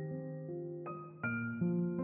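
Soft background piano music, slow sustained notes, with a few new notes struck about a second in.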